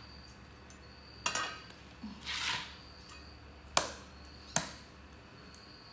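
Meat cleaver chopping through a raw whole chicken onto a wooden chopping board: three sharp chops, about a second in and then twice close together near four seconds, with a softer noise between the first two.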